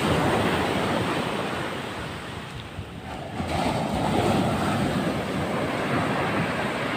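Rough sea surf breaking on a beach, surging up twice, with wind rumbling on the microphone.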